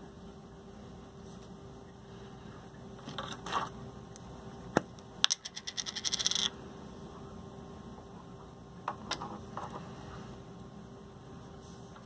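Small handling noises from opening a red plastic tin of soldering flux: a little scraping, two sharp clicks, then a quick run of about a dozen clicks lasting about a second, with a few light knocks later. A faint steady hum runs underneath.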